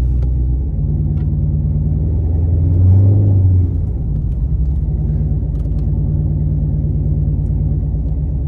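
Swapped 392 (6.4-litre) Hemi V8 in a Dodge Charger running at low revs while driving, swelling briefly with a bit of throttle about three seconds in before settling back.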